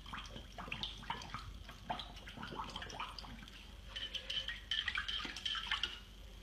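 Water splashing and sloshing in a dog's water bowl as a young dog noses and paws at a toy floating in it, in many irregular small splashes that come thicker in the second half.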